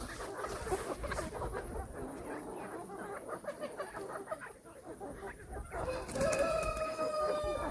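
Chickens clucking, with a rooster crowing once for nearly two seconds near the end.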